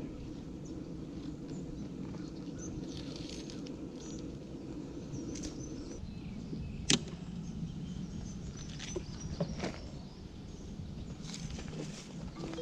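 Honeybees buzzing around an open hive, a steady hum, with small clicks of hive parts being handled and one sharp knock about seven seconds in.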